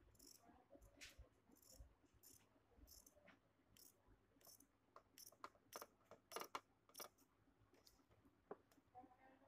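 Large tailor's shears snipping through cotton blouse fabric. The snips and blade clicks are faint and irregular, busiest in the middle.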